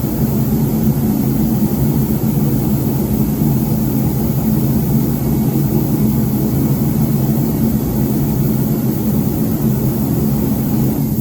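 A steady, loud mechanical drone of a running motor that cuts off suddenly near the end.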